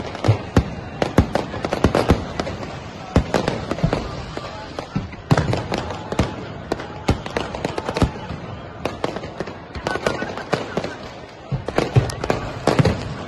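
Fireworks going off: a dense, irregular run of sharp bangs and crackles from rockets and aerial shells bursting overhead, easing briefly shortly before the end and then thickening again.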